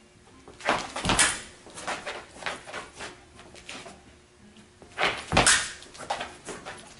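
Fencers' footwork on a hard floor: two heavy foot stamps, about a second in and again about five seconds in, with lighter steps and shuffles between them as they advance, retreat and set up the lunge.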